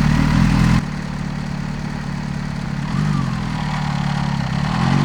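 Kawasaki Z H2's supercharged inline-four running under throttle, then the throttle closes about a second in and the engine drops to a quieter, lower rumble. A short blip of revs comes near three seconds in, and the revs begin to rise again near the end.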